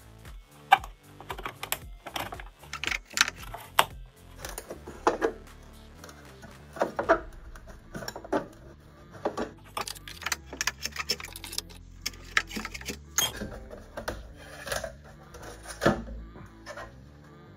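Metal scraper blade prying along the seam between a Sony speaker cabinet's plastic top baffle and its particle-board box: irregular clicks, scrapes and clacks as the panel is worked loose. Background music plays underneath.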